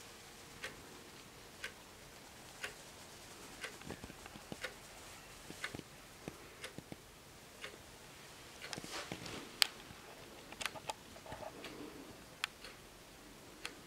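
Junghans wall clock ticking about once a second, with extra irregular clicks and one sharper click a little past the middle.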